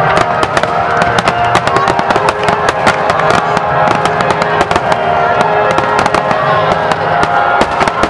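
Aerial fireworks shells bursting in a rapid, dense barrage, many sharp reports a second mixed with crackling, forming a continuous loud din. Held tones run underneath.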